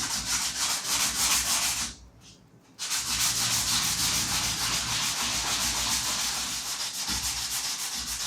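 220-grit wet sandpaper rubbed by hand over primer on a fiberglass-covered model airplane fuselage, in quick, even back-and-forth strokes. The rubbing stops briefly about two seconds in, then carries on steadily.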